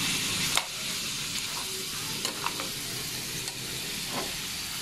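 Boiled pork hock pieces sizzling in hot oil with onion and garlic as they are sautéed, stirred with a spatula, with a few sharp knocks of the spatula against the pan, the loudest about half a second in.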